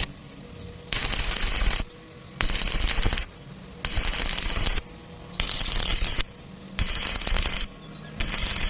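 Welding arc crackling in short bursts of about a second each, struck and broken again about every second and a half: a run of brief welds.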